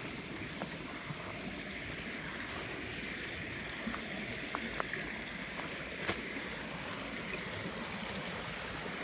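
River water rushing steadily, with a few short clicks over it.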